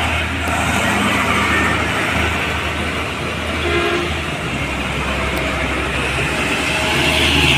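Heavy diesel trucks laden with cassava drive past one after another, engines droning low with tyre and road noise. A short horn toot sounds about four seconds in.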